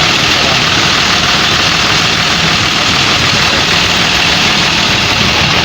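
A bus's diesel engine idling steadily close by, heard over loud, even road noise.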